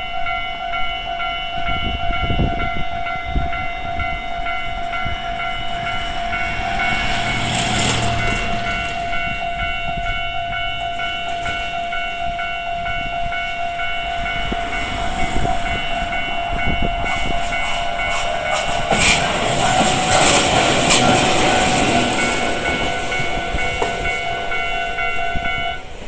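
Japanese railway level-crossing warning bell in its standard electronic tone, ringing its repeated ding throughout and stopping right at the end. Trains run past the crossing, briefly about eight seconds in and louder from about seventeen to twenty-five seconds.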